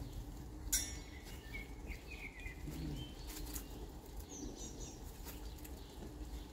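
Laundry being shaken out and hung on a clothes drying rack: a few soft flaps and rustles of cloth, with a sharper click about a second in. Short bird chirps and a low steady rumble of outdoor background sit underneath.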